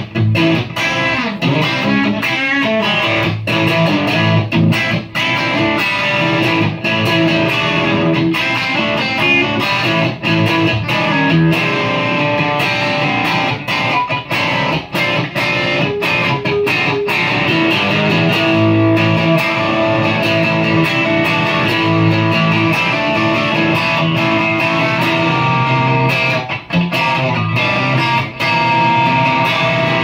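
Stratocaster-style electric guitar played without pause through Pedalbot effects pedals into an amplifier: a pedal sound test of picked notes and strummed chords.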